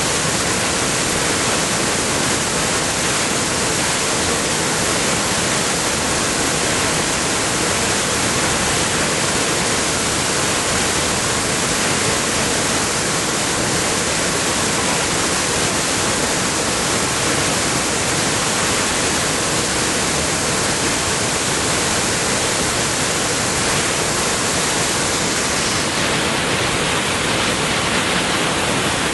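Steady rushing of whitewater: a fast creek pouring through rapids over boulders.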